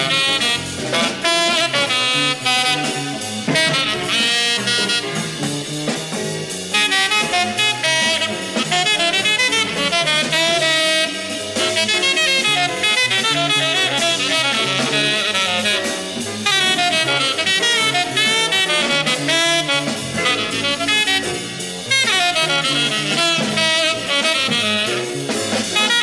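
Bebop jazz by a septet of two tenor saxophones, two trumpets, piano, bass and drums, played from a restored vinyl LP: a tenor saxophone carries the melodic line over piano, bass and drums, with brass in the ensemble.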